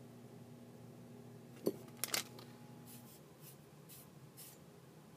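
Small contact sounds of hand soldering a surface-mount chip: a sharp click about a second and a half in, then a quick cluster of short scrapes and a few faint brief hisses as the soldering iron tip and solder wire work the pins. A faint low hum runs underneath and stops about three seconds in.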